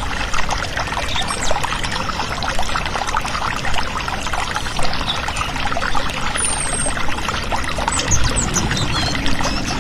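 A thin stream of water pours from a miniature model water pump's outlet pipe and splashes steadily into a small bowl of water.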